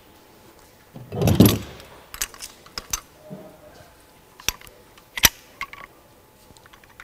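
Crane hook and rigging being hooked up: a dull thump about a second in, then scattered sharp metallic clicks and clinks.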